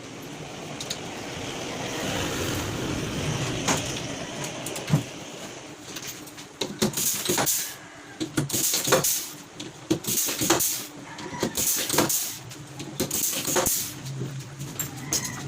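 Workshop assembly noise: a steady hiss for the first few seconds, then a run of irregular sharp knocks and metallic clatter of tools and case hardware being handled.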